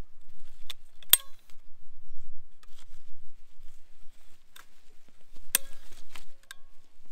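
Long-handled loppers working on thin coppiced branches: about half a dozen sharp metallic clicks and snaps of the blades and joints, the loudest about a second in and another near the end, some with a short metallic ring.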